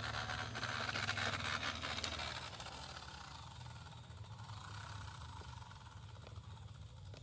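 WPL D12 remote-control mini pickup's electric motor and gearbox running as it drives over rough concrete, loudest in the first couple of seconds and fading as the truck pulls away.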